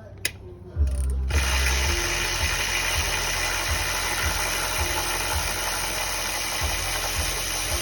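A power tool runs steadily from about a second in and cuts off suddenly near the end, with a mechanical ratcheting character.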